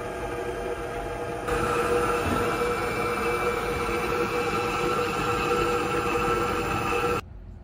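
Stand mixer motor running with a steady whine while its flat beater churns dry bath bomb mixture in a stainless steel bowl. It gets louder about a second and a half in, then cuts off suddenly near the end as the mixer is switched off.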